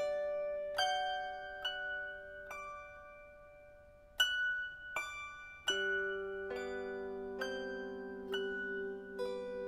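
Background instrumental music: single plucked notes about once a second, each ringing out, over a held low tone that drops out for a few seconds in the middle.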